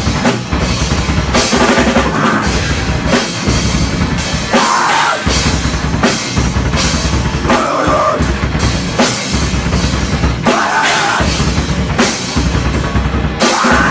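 A rock band playing a song live, with the drum kit loud and prominent: bass drum and snare drum.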